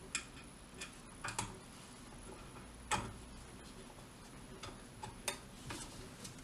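Irregular light metallic clicks and taps as the small trigger-assembly pin and the receiver of an H&R Pardner Pump shotgun are handled while the pin is worked back into its hole. The loudest click comes about three seconds in.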